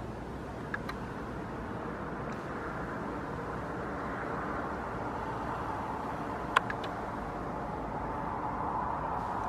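Steady outdoor hiss and rumble of distant road traffic, swelling slightly toward the end, with one sharp click about two-thirds of the way through.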